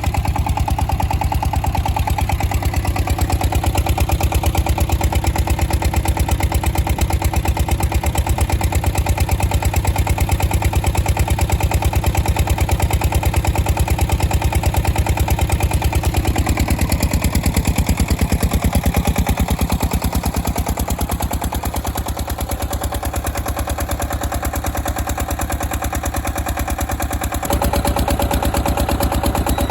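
SD1110 diesel engine of a homemade generator running steadily, with a hard, even beat. About halfway through its note shifts and it gets slightly quieter, then near the end it jumps back up abruptly with a changed tone.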